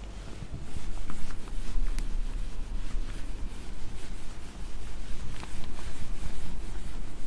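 Handheld whiteboard duster scrubbing marker off a whiteboard in rapid rubbing strokes, starting about half a second in.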